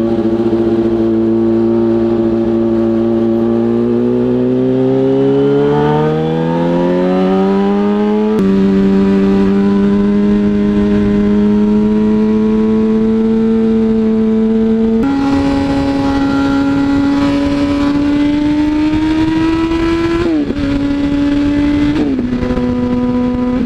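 2007 Yamaha R1's inline-four engine under way: its pitch climbs steadily for about eight seconds, steps at about eight and fifteen seconds and holds, then drops twice in steps near the end, with rushing wind over it.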